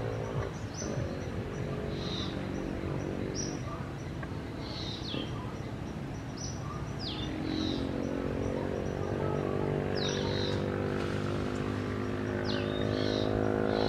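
Short high chirps, each dropping quickly in pitch, come about once a second from a small animal. Under them runs a steady low droning hum that grows louder in the second half.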